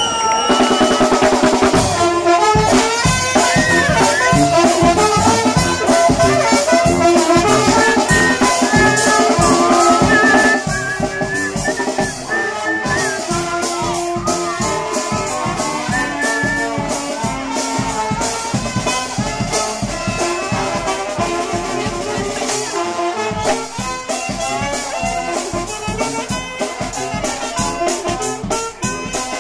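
A charanga (Spanish street brass band) playing a lively tune: trumpets and saxophone carrying the melody over a steady drum beat. The band gets quieter about ten seconds in.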